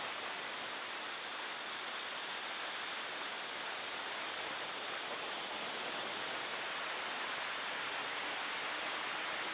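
Steady rushing noise with no clear engine note: wind and road noise picked up by an onboard camera in a BMW E36 M3 race car at speed.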